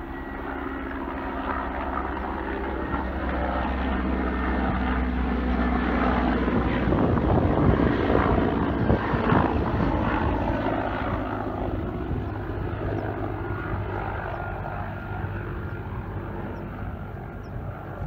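A helicopter flying past overhead, its rotor and engine sound steady. It grows louder to a peak about halfway through, then fades as it moves away.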